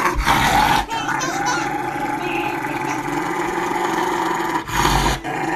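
Rottweiler growling and grumbling in a long, continuous rumble as its nails are clipped, a sign of the dog protesting the nail trim. It breaks briefly about a second in and again near the end.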